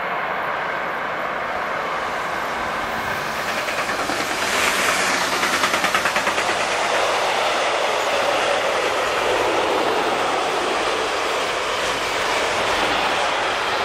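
Freight train of goods wagons rolling past close by, a steady rush of wheel and rail noise. About five seconds in it swells, with a fast clatter of wheels over the rails.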